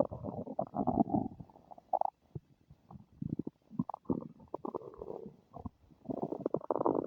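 Human stomach rumbling and gurgling in irregular bursts, with louder rolling gurgles at the start and again about six seconds in and scattered short bubbly pops between.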